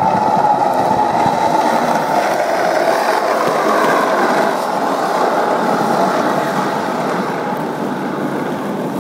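Skateboard wheels rolling steadily downhill on asphalt, a continuous rumbling roll with no breaks.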